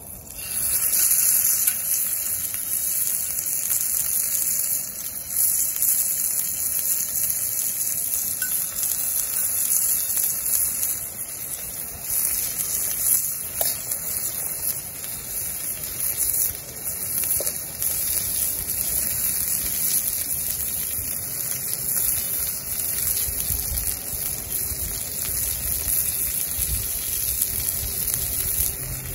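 Meat sizzling in a hot cast iron skillet over a wood fire, a steady hiss that starts suddenly as the meat goes into the pan.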